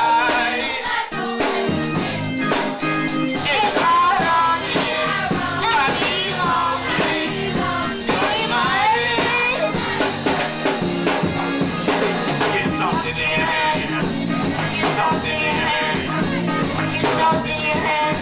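Youth gospel choir singing with a young girl leading on a microphone, amplified through the church PA, backed by keyboard and a steady band beat. The lead voice wavers and slides between notes throughout.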